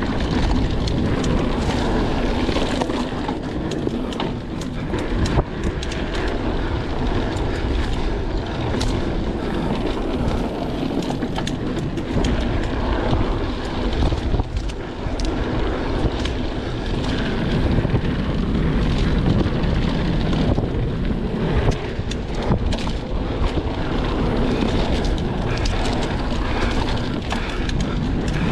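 Mountain bike rolling fast down a dirt trail: a steady rush of wind on the microphone over tyre noise on dirt, with frequent short clicks and rattles as the bike goes over bumps.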